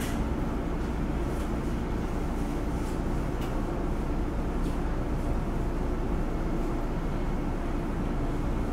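Steady hum and air-conditioning noise inside a stationary Hankyu 9000 series commuter car, with a few faint clicks in the first five seconds.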